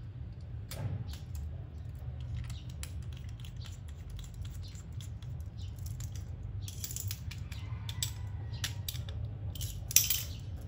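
Irregular light clicks and taps of a wristwatch and its case being handled, with one sharper click about ten seconds in, over a steady low hum.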